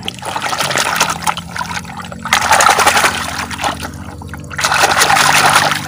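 Water splashing and sloshing as a hand scrubs wet sand off a plastic toy dump truck in shallow muddy water, in two louder spells with a lull about four seconds in.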